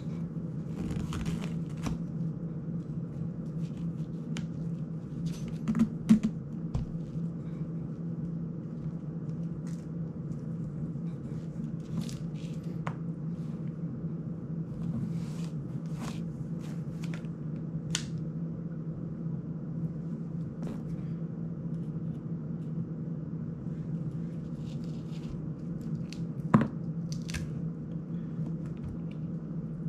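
Scattered small clicks and taps of drone parts and a small tool being handled during a repair, two of them sharper and louder, about six seconds in and near the end, over a steady low hum.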